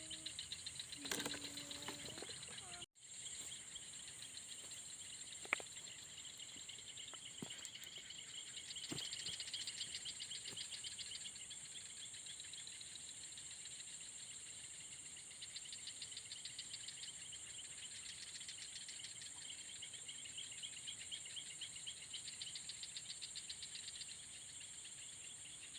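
Night insects, crickets, calling steadily: a constant high-pitched trill with pulsing chirps underneath. The sound drops out for an instant about three seconds in, and a few faint sharp clicks come over the chorus.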